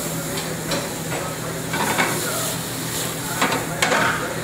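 Vegetables sautéing in hot olive oil in a sauté pan on a gas range, sizzling steadily, with a few short knocks and scrapes of the pan and utensils. A steady low hum runs underneath.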